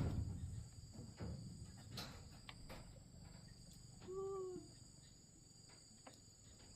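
Insects chirring steadily in a high, even tone, with a few light knocks and one short pitched animal call about four seconds in.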